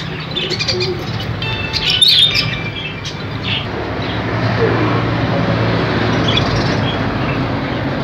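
Caged birds chirping, with a cluster of short high calls in the first two seconds, the loudest about two seconds in, then fewer calls over a steady background noise.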